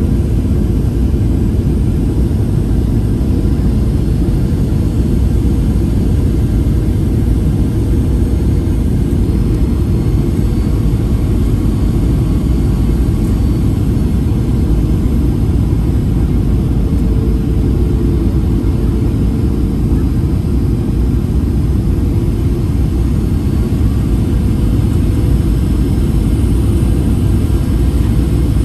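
Steady cabin noise of a Boeing 737-800 on approach, heard from a window seat by the wing: the low, even hum and rush of its CFM56 turbofan engines and the airflow, with no change in level.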